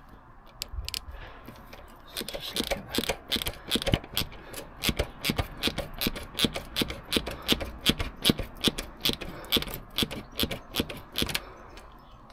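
Hand ratchet clicking in quick, even strokes, about four clicks a second, as it turns a nut at a motorcycle's rear wheel spindle while the drive chain is being slackened. A few loose knocks come first; the steady clicking starts about two seconds in and stops shortly before the end.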